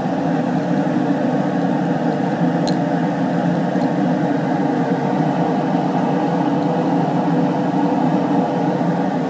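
Steady electric fan whir with a constant hum of several tones, and one faint tick a little under three seconds in.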